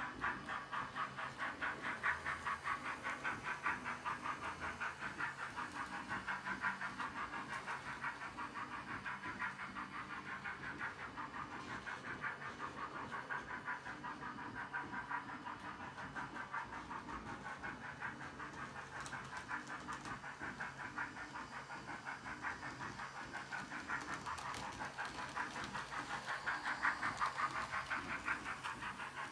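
Sound decoder of an H0-scale Roco model of the DB class 023 steam locomotive playing steam-locomotive chuffing through its small speaker: a fast, even chuff beat with a hiss of steam, swelling a little louder near the end.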